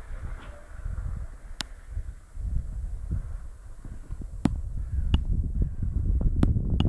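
Wind buffeting a phone's microphone as an uneven low rumble, with a few sharp clicks scattered through it.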